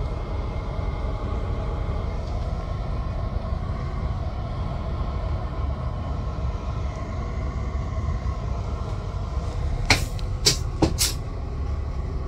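Greyhound coach's engine and road noise rumbling steadily inside the passenger cabin while driving. About ten seconds in come three short, sharp hisses close together.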